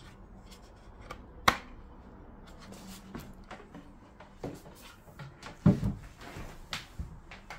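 Handling noise from a Starlink router's plastic case and its cables as the unit is turned over and a cable is fitted into the port in its base: scattered clicks, knocks and rubbing, with a sharp click about a second and a half in and a heavier knock near the end.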